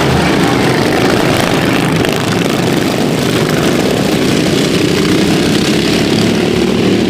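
Racing lawnmowers' small engines running on track, a loud, steady engine din.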